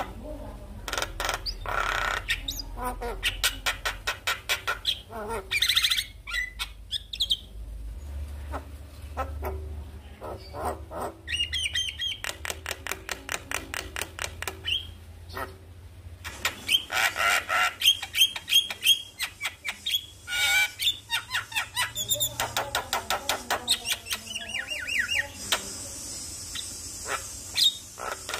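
Javan myna (jalak kebo) in full song: long runs of rapid repeated chattering notes, about several a second, mixed with sliding whistled phrases.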